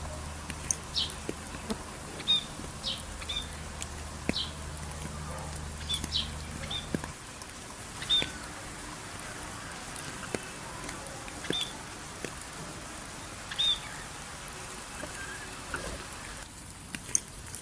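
Small birds chirping, short high calls repeated every second or so, over a steady hiss of light rain. A low hum underneath stops about seven seconds in.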